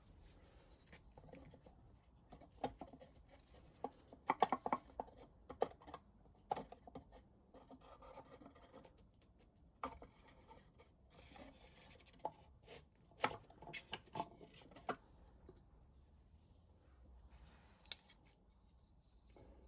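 Light clicks, taps and knocks of small hand tools and wooden pieces being handled, in two busy clusters, with a few stretches of light scratching like a pencil marking wood.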